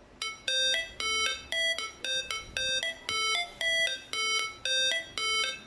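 Bonks DX11 speaker playing the intro of a song: a high, bright melody of short repeated notes, about two to three a second, with no vocals yet.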